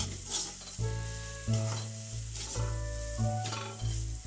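Ground moong dal stuffing sizzling in oil in a kadhai as it is stirred and scraped with a wooden spatula, a stroke every second or so, while it roasts. Background music with held notes plays underneath.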